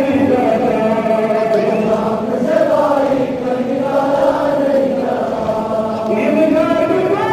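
A large group of men chanting a Muharram mourning noha together in long, held lines of melody.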